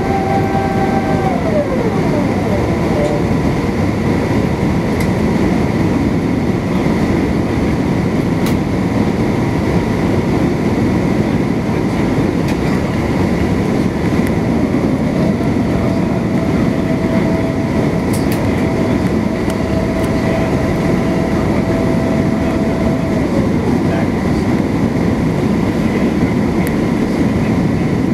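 Steady cabin drone of an Airbus A350-900 on approach, heard from inside the cabin: Rolls-Royce Trent XWB engines and rushing airflow. A thin steady whine sits above it, and a higher tone comes in about fifteen seconds in and falls away about eight seconds later.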